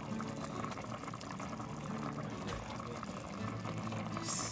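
Paksiw broth of black cod in vinegar bubbling in a pot on the stove, a steady boil full of small pops, with a brief hiss near the end.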